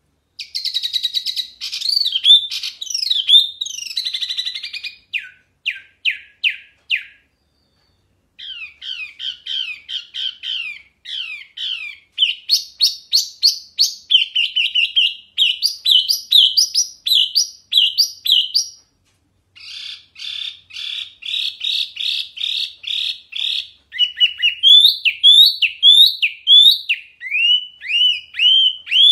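Caged wambi mini, a small babbler, singing loud, clear whistled notes. The notes come in rapid, repeated phrases of sliding slurs, broken by short pauses.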